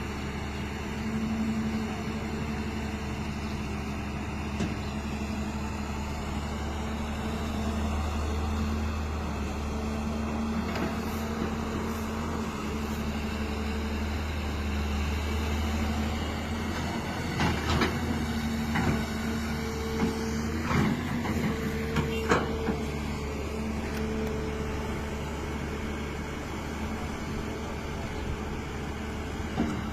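Hyundai excavator's diesel engine running steadily, a low hum with a held tone over it. A little past halfway, a cluster of sharp knocks and clanks sounds over several seconds.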